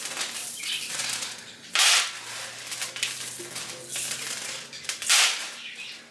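Dry beans being picked over by hand on a countertop: grains clicking and rattling, with two louder rattling rushes of beans sliding, about two seconds in and again about five seconds in.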